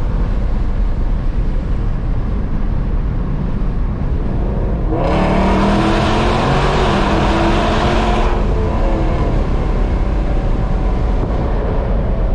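Modified 5.7-litre Hemi V8 under full-throttle acceleration under a bridge, heard from inside the cabin. Steady road and wind rumble gives way, about five seconds in, to about three seconds of loud exhaust rising in pitch, which then drops back to cruising rumble.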